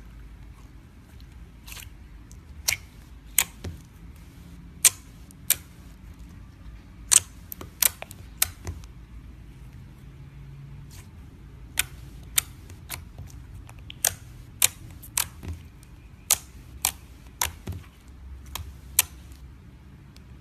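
Gold metallic slime being pressed and folded by hand, giving off irregular sharp clicks and pops, one or two a second, over a low steady hum.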